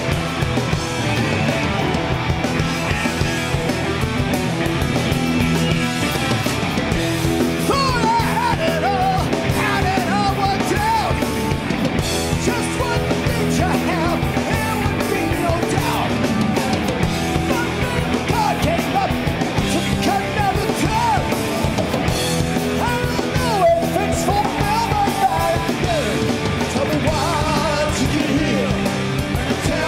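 Heavy metal band playing live: distorted electric guitars, bass and drums, with a male lead voice singing the verse from about eight seconds in.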